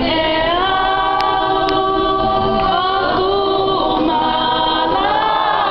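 Tongan church congregation singing a hymn a cappella in many voices, holding long notes and sliding slowly between them. Two light clicks are heard about a second in.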